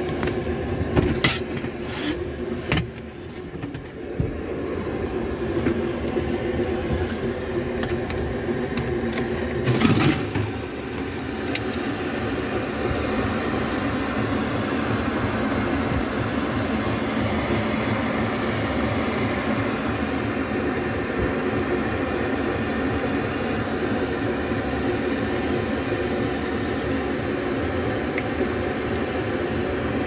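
A steady mechanical drone with several held tones, broken by a few sharp knocks and rattles in the first few seconds and one louder clatter about ten seconds in.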